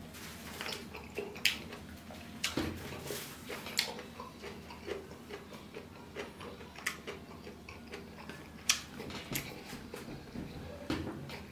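Eating rice by hand, heard close up: irregular sharp, wet clicks and smacks from chewing and from fingers working the rice on a steel plate, a few seconds apart.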